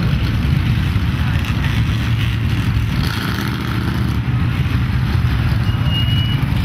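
Lifted 4x4 mud trucks' engines running as they drive through a mud pit, a steady low drone. A short high-pitched whistle comes near the end.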